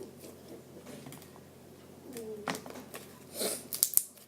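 Homemade slime being handled and squished by hand, giving scattered small sticky clicks and pops, with a louder cluster of clicks near the end.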